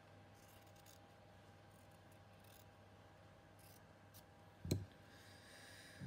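Quiet scissors cutting a scrap of cotton fabric, with faint snips and rustling, and one sharp knock about three-quarters of the way through.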